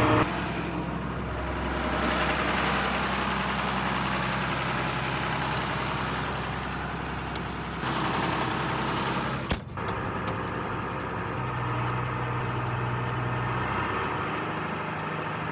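Farm tractor engine running steadily, with a brief sharp break about nine and a half seconds in.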